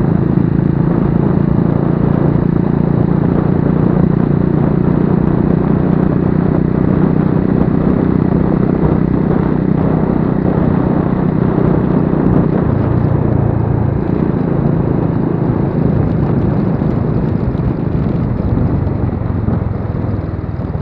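An engine running steadily, its pitch dropping slightly about two-thirds of the way through.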